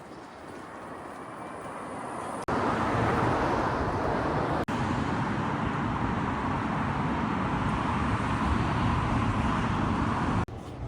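Steady street traffic noise, outdoors, across a few short clips cut together: softer at first, then louder from about two and a half seconds in.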